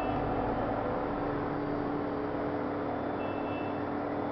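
Electric motor and grinding wheel of an end mill re-sharpening machine, just switched on and running at steady speed with no tool on the wheel: an even hum with a held tone.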